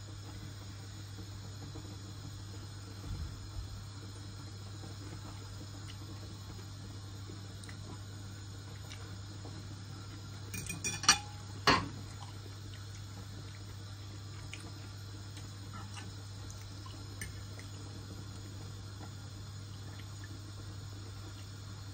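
A fork clinking against a ceramic dinner plate a few times, with two sharp ringing clinks about eleven seconds in, over a steady low hum.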